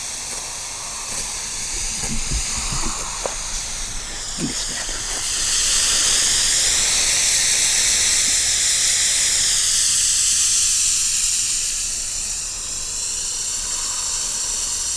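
Cannon brand Mammoth Smoke blue smoke firework burning, a steady hiss as the smoke jets out of the tube. The hiss slowly wavers and grows louder for several seconds in the middle.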